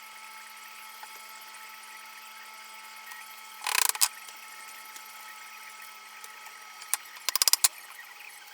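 A workshop tool making two short bursts of rapid clicking, one about four seconds in and one near the end, over a faint steady hum.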